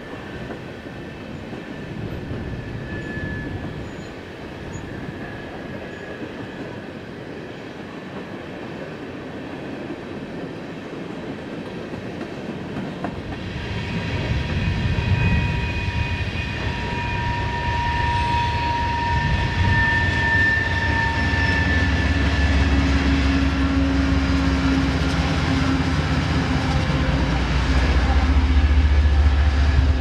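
Slow-moving BNSF freight train on a curve: high steady wheel squeal sets in about halfway through, then the low drone of the lead diesel locomotives grows louder as they come by. Wind rumbles on the microphone before the train draws near.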